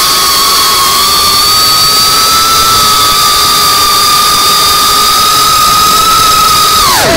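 Motors and propellers of a CineLog35 FPV cinewhoop drone whining at a steady high pitch under sustained throttle during a climb. Near the end the pitch drops sharply as the throttle comes off.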